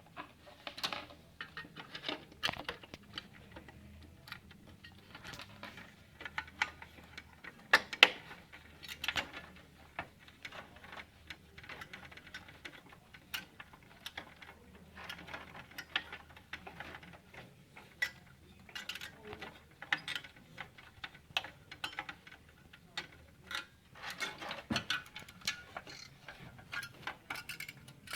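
Irregular small clicks, taps and scrapes as a CPU heatsink is set over the fan casing and its screws are lined up and driven in by hand, with one louder knock about eight seconds in.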